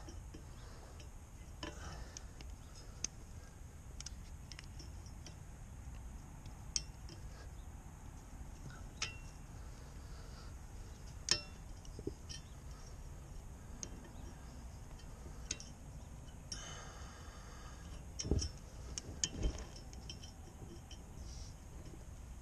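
Pliers and an adjustable wrench clinking and clicking against the nut on the end of a boat's propeller shaft, sparse metallic taps while the prop nut is worked loose so the shaft can be pulled. A couple of duller knocks come near the end.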